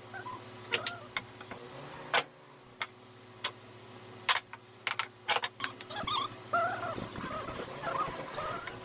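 Scattered light knocks and clicks as strips of board are handled and set down on the hull. From about six seconds in, a run of short whining animal calls.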